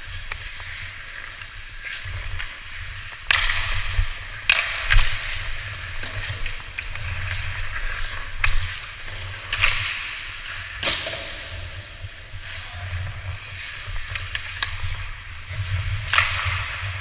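Hockey skates scraping and carving on ice in repeated swishes, with several sharp clacks of sticks and puck, over a low rumble.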